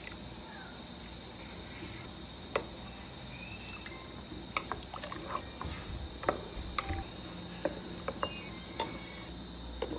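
Kitchen work: scattered light clicks and knocks, as of utensils and containers being handled, over a steady high whine.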